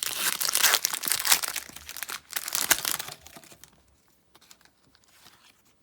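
Foil wrapper of a Pokémon booster pack crinkling and tearing as it is pulled open and handled, dense and crackly for about three seconds, then dying away to faint rustles.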